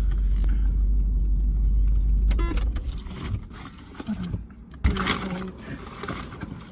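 Steady low rumble of a car cabin that stops about two and a half seconds in. Then keys jangle briefly, and a single sharp thump comes a little over two seconds later.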